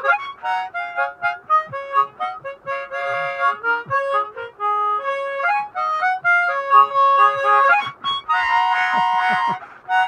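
Harmonica playing a slow tune of single held notes stepping up and down, with a fuller stretch of several notes sounding together near the end.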